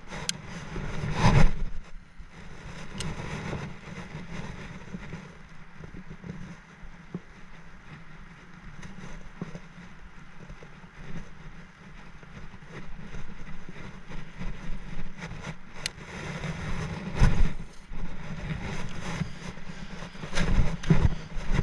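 Low wind rumble on the microphone, with a few louder bumps about a second in and again in the last few seconds.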